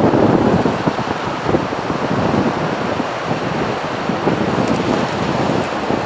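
Rough surf breaking and washing up a beach: a steady rush of churning water, a little louder about the first second, with wind buffeting the microphone.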